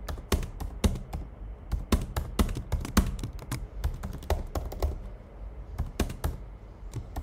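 Typing on a computer keyboard: a quick, uneven run of keystroke clicks, thinning out for a moment in the middle before picking up again.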